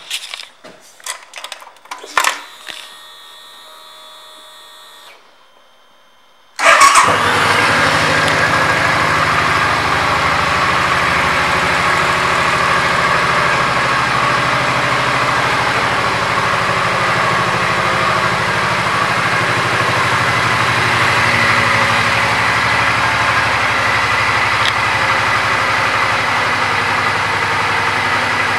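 A few clicks, then about six and a half seconds in the Suzuki Boulevard C50T's V-twin engine starts with a sudden burst and settles into a steady idle.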